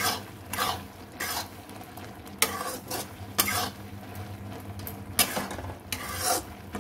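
A slotted spatula stirring and scraping boondi through hot sugar syrup in a dark non-stick kadhai, with uneven scraping strokes roughly once a second. A light sizzle rises from the syrup simmering around the boondi.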